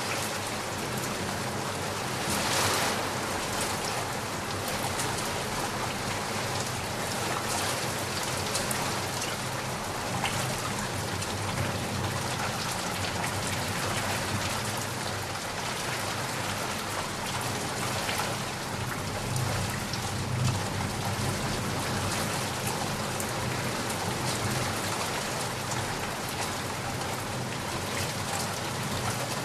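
Heavy rain pouring steadily, swelling briefly louder a few seconds in.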